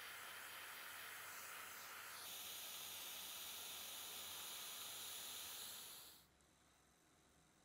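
Small gas torch flame hissing steadily while soldering brass parts. About two seconds in the hiss shifts higher in pitch, and about six seconds in it cuts off to near silence.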